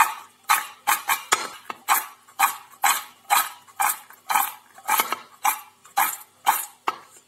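Fried kurkure snack sticks tossed with spices in a stainless steel bowl, rattling against the metal in regular strokes about twice a second, stopping near the end.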